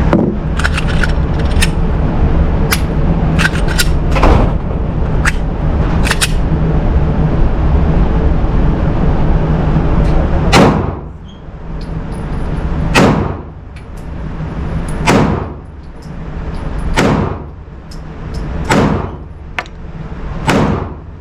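Pistol gunfire at an indoor range, most likely a Glock 43X MOS 9mm: a quick, irregular string of shots, some fainter, over a steady low rumble, then from about halfway through six slow, evenly spaced shots about two seconds apart, each ringing out in the room.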